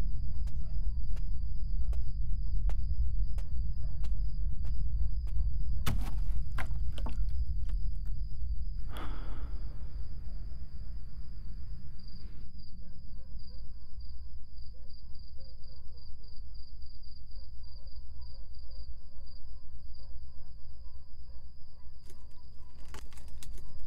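Crickets chirping in a steady high pulsing trill over a low steady rumble of night ambience. A run of faint, evenly spaced ticks comes in the first several seconds, with a few sharper clicks after them.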